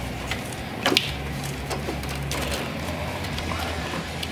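Hands working a plastic ignition coil and its connector out of a Coyote V8's valve cover: faint handling and rubbing with a sharp click about a second in and a softer one near two seconds, over a steady low hum.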